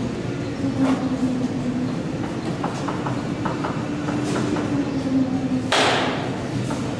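A steady mechanical drone with a wavering hum, a few light taps in the middle, and a short loud rush of noise near six seconds in.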